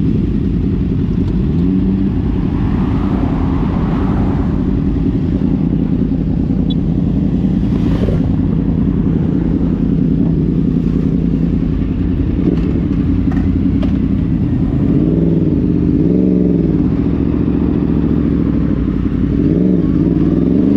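Several sport motorcycle engines running together at idle, with throttle blips that rise and fall in pitch in the second half and a rising rev near the end as the bikes pull away.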